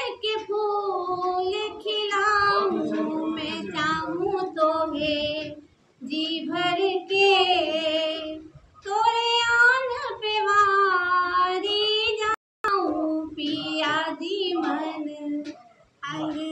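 A woman's solo voice singing a poem unaccompanied into a microphone, in long held notes with a slight waver, in phrases broken by brief pauses.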